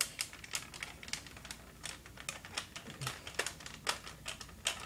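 Irregular light clicks and taps of hard plastic as a toy robot's parts are handled and fitted together by hand, a few clicks a second.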